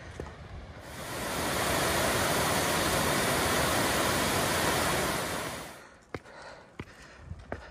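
A loud steady rushing noise swells up about a second in, holds for about four seconds, then fades away; a few sharp clicks follow near the end.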